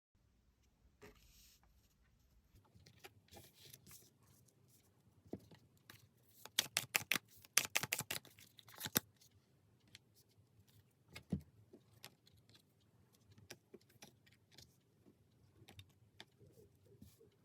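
Tarot cards being handled and shuffled: light rustling with scattered clicks and a quick run of sharp snaps about six to nine seconds in.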